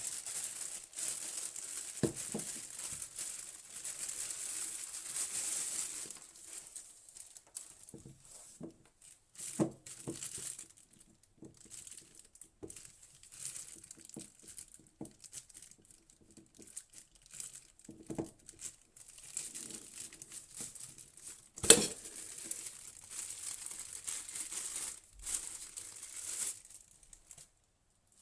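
Packaging being handled: crinkling and rustling in stretches, with scattered light knocks and one sharp knock about two-thirds of the way through.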